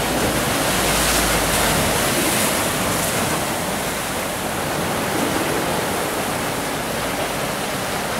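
Rough, choppy sea surf breaking and washing over a rock breakwater: a steady rushing of water.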